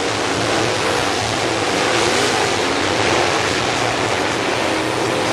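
A pack of dirt late model race cars racing at speed, their V8 engines blending into a loud, steady wash of noise, with individual engine notes sliding up and down as cars go past.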